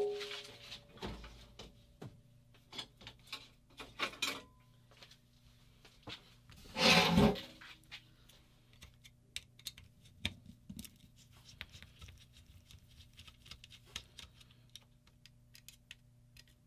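Scattered small clicks, taps and light scrapes of a Phillips screwdriver and fingers working on a paintball marker's grip frame and circuit board, with a louder rustling scrape about seven seconds in. A faint steady hum runs underneath.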